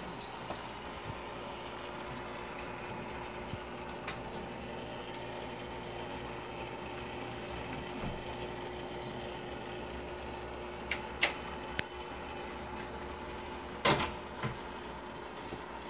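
Reef aquarium pumps running with a steady hum. A few sharp clicks come in the second half, the loudest about two seconds before the end.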